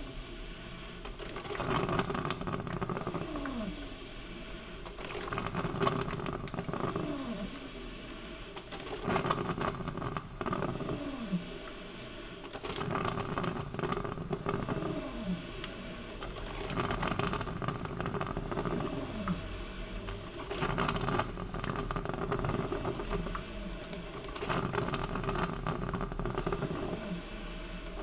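Coffee maker brewing: gurgling and hissing that rise and fall in a repeating cycle about every four seconds, each cycle with a short falling gurgle and a spell of steamy hiss, with scattered small clicks and pops.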